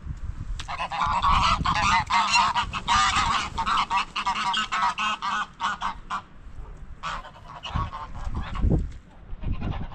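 A flock of farm poultry calling loudly, many overlapping calls for the first six seconds, then fewer, scattered calls. A low thump near the end.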